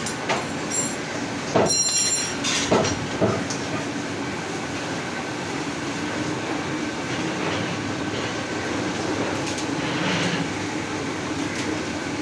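Meat and tools knocking on a wooden chopping block a few times in the first few seconds, with two short high electronic beeps about one and two seconds in. Under it runs a steady mechanical hum.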